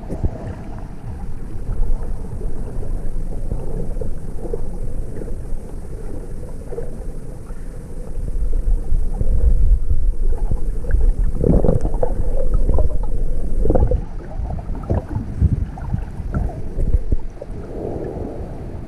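Muffled underwater water noise picked up with the camera under the surface: a steady low rumble of moving water, louder for a few seconds midway, with irregular gurgles and knocks.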